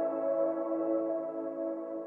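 Ambient background music of sustained, layered chords, slowly fading.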